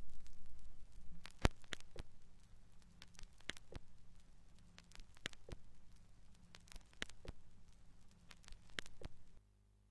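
Vinyl LP surface noise in the run-out groove: crackle and sharp clicks over a low rumble and hum, the loudest click coming about every 1.8 s as the stylus goes round once per revolution. The sound cuts off suddenly near the end.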